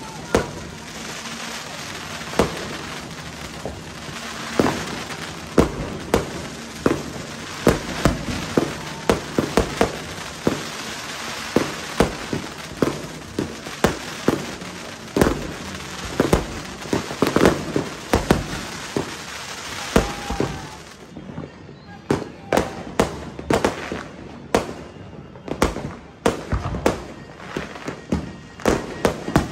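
Aerial fireworks going off in a rapid barrage of bangs over a continuous crackle. After about twenty seconds the crackle thins out, leaving separate bangs.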